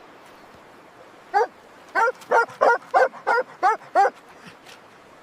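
Puppy giving short, high-pitched yips: one, then a quick run of seven, about three a second.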